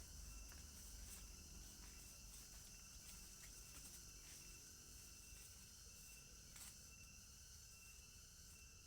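Faint, steady chorus of forest insects chirring, with a couple of faint ticks about a second in and past the middle.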